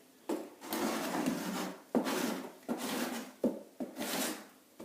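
A scraper dragged over a painted pine floor in about six short, rasping strokes.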